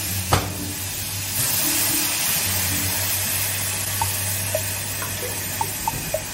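Water poured into a hot saucepan of stir-fried vegetables on a gas burner, hissing and sizzling as it hits the pan, then small bubbling pops as it starts to simmer, over a steady low hum. A sharp knock sounds just after the start.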